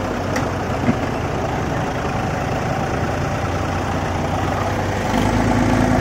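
Diesel tractor engines running hard under load while two tractors pull against each other in a tug-of-war. The engine sound grows louder, with a stronger, steadier note, about five seconds in.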